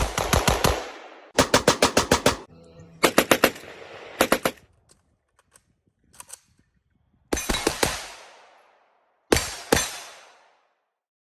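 Bursts of rapid gunfire, about six strings of quick shots, each trailing off in an echo. The strings grow shorter toward the end, the last ones only two or three shots.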